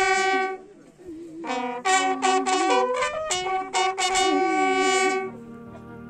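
Military bugle call sounded for a soldier's funeral salute: a long held note that ends just under a second in, then after a short pause a run of shorter notes stepping up and down, the last one held until about five seconds in.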